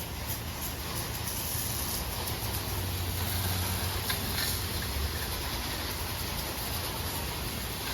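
Pressure washer running steadily: a low engine hum under an even hiss of spray.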